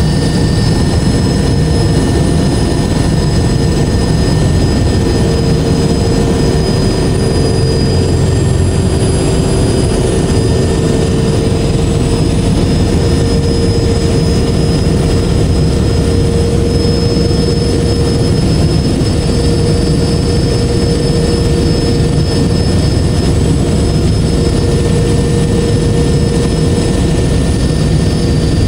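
Helicopter cabin noise in steady cruise flight: a loud, even rumble of rotors and turbine engines, with steady whining tones over it.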